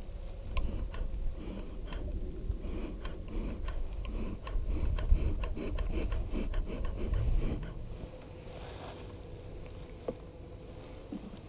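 Plastic cottage cheese tub handled and its lid pried at: scattered clicks and crackles of plastic, over a low rumble that eases after about eight seconds.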